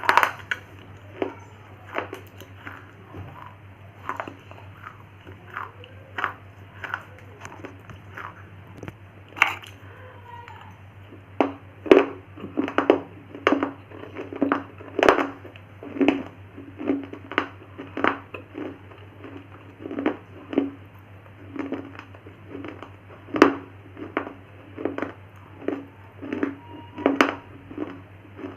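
Close-up crunching and chewing of hard baked clay: sharp, brittle crunches coming irregularly, one or two a second, thicker and louder from about eleven seconds in. A steady low hum runs underneath.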